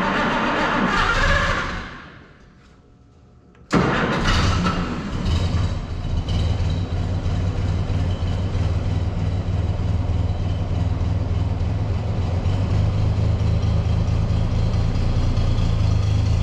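Oliver 1600 Industrial tractor's engine: a first burst of running dies away about two seconds in, then it starts again suddenly about four seconds in and runs steadily at idle.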